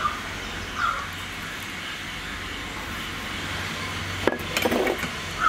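A steady background hum with one sharp clink about four seconds in, a small steel bowl knocking against the clay pot of vada batter, followed by a brief rustle of fingers working chopped ginger into the batter.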